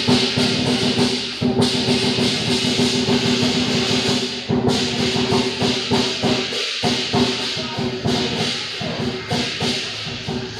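Lion dance percussion: a drum beaten rapidly with crashing cymbals over a steady ringing gong-like tone. The cymbal wash drops out briefly twice, about one and a half and four and a half seconds in, then resumes.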